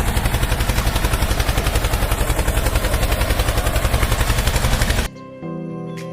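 A loud, rapid rattle of about five pulses a second, which cuts off suddenly about five seconds in. Soft music follows.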